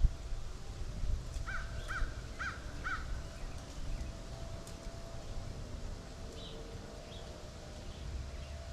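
A bird calling four times in quick succession, short harsh calls about half a second apart, over a steady low rumble.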